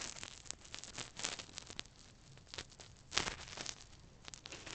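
Handling noise: the phone brushing and rubbing against something pressed close to it, giving irregular rustles and scrapes, the loudest about three seconds in.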